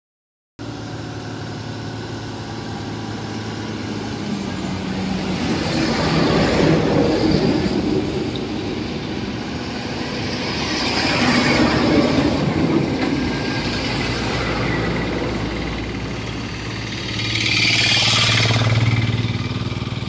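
Heavy diesel machinery running steadily: a Vögele asphalt paver working behind a loaded tipper truck, a continuous engine hum under a rougher mechanical noise. The noise swells louder three times, about 6, 12 and 18 seconds in.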